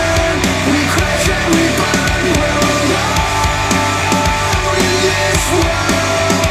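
Instrumental rock music with a steady, driving beat and a repeating low riff.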